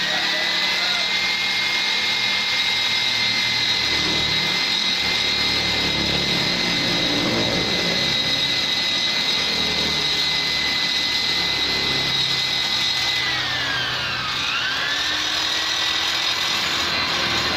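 Rotary grinder with a tuner burr bit giving a steady high whine while porting a Vespa two-stroke cylinder. Its pitch sags and recovers about three-quarters of the way through as the bit bites under load.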